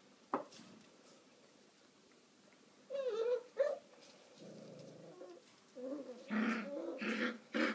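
Border Collie puppies making play noises: short wavering yelps about three seconds in, a low growl just after, then a louder run of yelps and growls near the end. A small knock comes just after the start.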